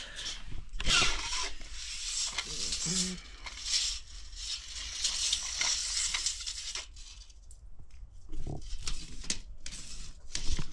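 Steel tape measure blade being fed down a well casing and drawn back out, making irregular scraping and rubbing noises against the pipe, with a few sharp clicks.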